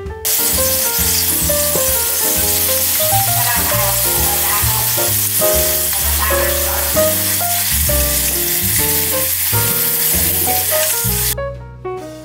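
Sliced garlic frying in hot oil in a wok: a loud, steady sizzle that starts as the garlic goes into the oil and cuts out briefly near the end.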